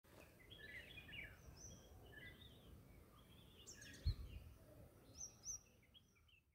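Faint birdsong: small birds chirping and twittering over a low background rumble, with a single dull thump about four seconds in.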